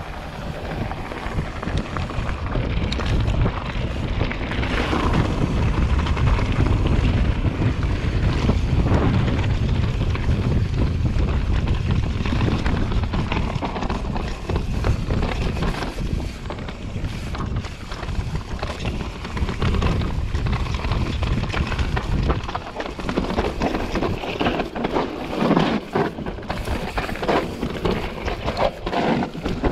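Wind rumbling on an action camera's microphone while an enduro mountain bike rides a dirt and rocky trail, with tyre noise and the bike rattling and knocking over rocks and roots. The knocks and rattles come thicker in the last several seconds.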